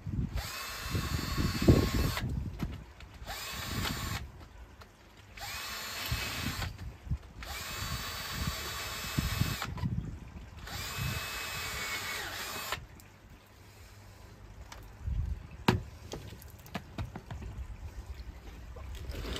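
Power drill boring drainage holes in the bottom of waterlogged plant pots. The motor runs five times, each run a second or two long and starting with a rising whine. After the last run, about two-thirds of the way through, only light handling knocks and clicks remain.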